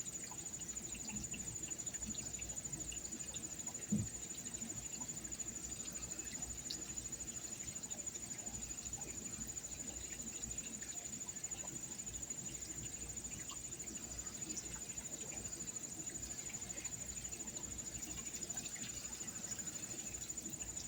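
Insects, likely crickets, trilling in one continuous high pulsing tone, with a single short low thump about four seconds in.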